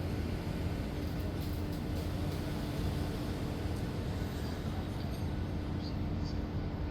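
Heavy engine running, a steady low rumble with a constant hum.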